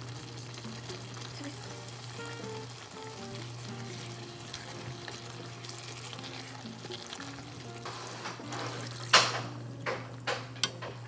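Vegetables and tomato sauce sizzling in a frying pan under a light background music melody. A few sharp knocks and scrapes of a wooden spatula against the pan come about nine seconds in.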